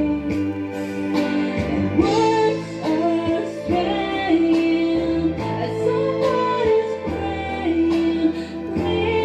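A woman singing into a handheld microphone, holding long notes and gliding between them, over instrumental backing music with steady low notes.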